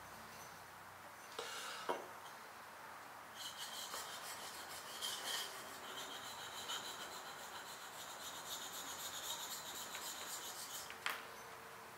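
Steel blade rubbed back and forth on a sharpening stone, a steady scraping hiss from about three seconds in until near the end. A few light clicks come before it and one just as it stops.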